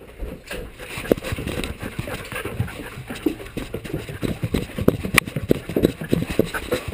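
A greyhound climbing stairs: a quick, irregular run of footfall thuds and knocks, several a second, picked up by a camera strapped to the dog.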